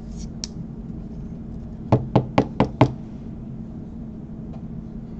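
Five quick sharp taps in a row, a rigid plastic toploader card holder knocked against the tabletop to settle a trading card inside it.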